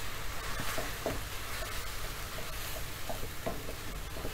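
A roux of onion, peppers and flour sizzling in a pan on low flame as chicken stock is stirred into it. A wooden spatula scrapes and taps against the pan now and then.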